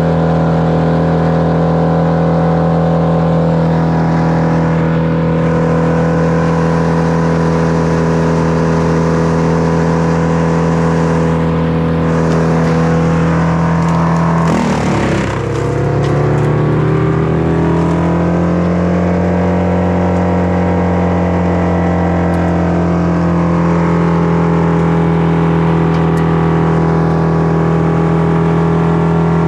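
Two-stroke Echo chainsaw running at high revs, loud and steady. About halfway through its pitch drops sharply, then climbs back over a few seconds.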